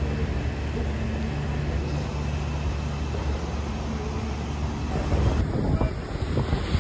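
Steady low drone of a distant engine. About five seconds in it gives way to gusty wind buffeting the microphone, with surf.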